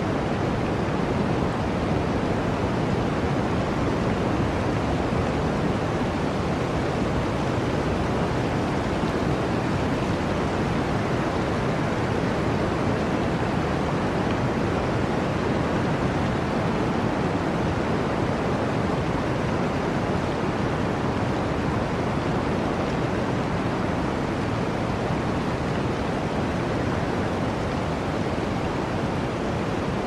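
Blizzard wind blowing through a forest: a steady, even rushing noise with no breaks or separate events.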